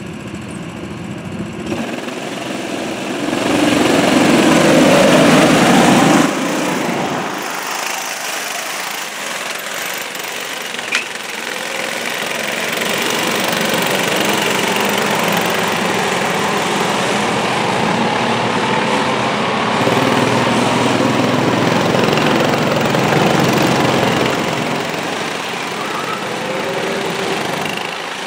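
Several small go-kart engines running and revving as the karts pull away and race around the track, loudest a few seconds in, then a steady buzz of karts passing, with one sharp click about eleven seconds in.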